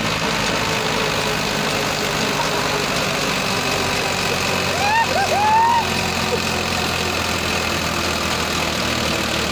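Two tractor diesel engines, a Farmtrac 60 EPI and a Mahindra 575, running hard under full load as they pull against each other in a tug-of-war, the rear wheels spinning. The engine sound stays steady, with brief shouting about five seconds in.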